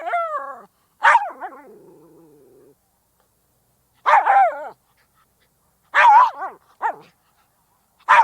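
Miniature schnauzer barking: single sharp barks about two seconds apart. The first bark trails off into a lower drawn-out sound, and another bark is followed by a short extra yelp.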